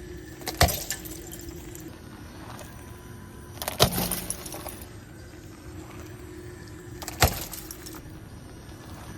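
Plastic Rubik's cubes cracking and crunching under a car's tyres: three sharp cracks about three seconds apart, each with a short rattle of breaking pieces, over a steady low hum.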